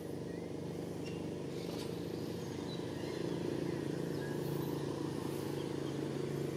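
A steady low engine hum, like a vehicle idling, growing a little louder about halfway through.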